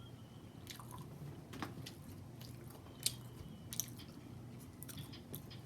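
A person chewing food close to the microphone, with scattered short, wet clicks and crackles from the mouth.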